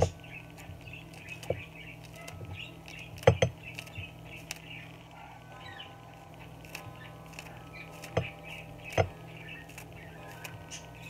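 Kitchen scissors snipping a green onion into pieces: a few sharp snips at irregular intervals, the first the loudest and a quick pair about three seconds in, over a steady low hum.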